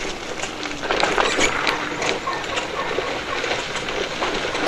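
Tunwal Elektrika e-bike ridden over a rough road: irregular clicking and rattling from the scooter's body and wheels as it goes over bumps.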